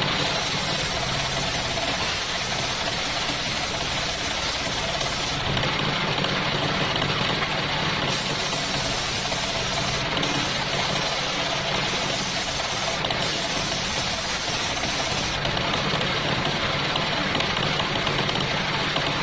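Homemade circular saw table cutting coconut-palm wood over the steady drone of its driving engine. The hiss of the blade in the wood lasts about five seconds, stops for a couple of seconds, then comes back for about seven seconds, after which the blade spins free with only the engine running.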